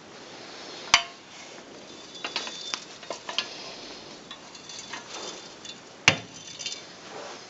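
Handling of a metal motorcycle paddock stand: two sharp knocks, about a second in and again near the end, with light clinks and rattles between them.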